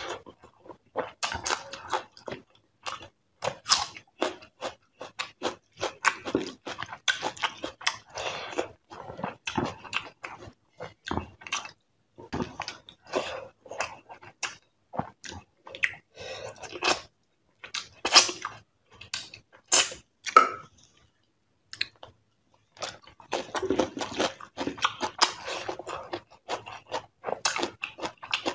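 A person biting and chewing crunchy food: a run of irregular crunches, with a short pause about three quarters of the way through.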